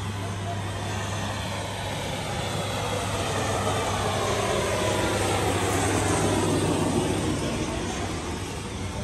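A motor vehicle passing close by on the street: it grows louder to a peak about six or seven seconds in, its pitch falling as it goes past, then fades.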